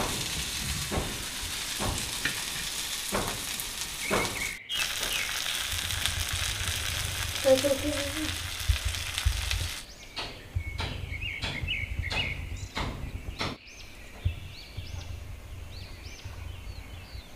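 Small fish frying in hot oil in a metal pan, a steady sizzle with clicks and scrapes as a metal ladle stirs them. The sizzle stops about ten seconds in, leaving birds chirping and a few sharp taps.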